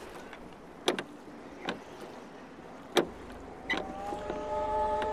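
A few sharp, isolated clicks, then a held chord of several steady tones that glides up into place about three and a half seconds in and swells near the end, as of music laid over the footage.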